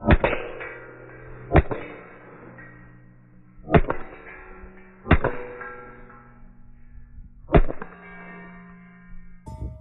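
Rimfire rifle shots striking steel plates, five hits spaced a second and a half to two and a half seconds apart, each plate ringing on after the hit. The slow, even spacing is the shooter stopping the rifle on each plate.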